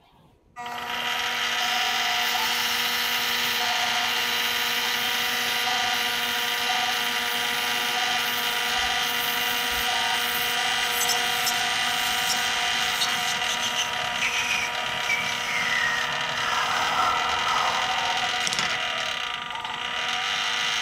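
Budget benchtop mini lathe running, with a steady motor and gear whine as the spindle turns a part. The tool cuts metal, with a few clicks, and a tone slides down in pitch over several seconds in the last third. The machine starts about half a second in and stops at the end.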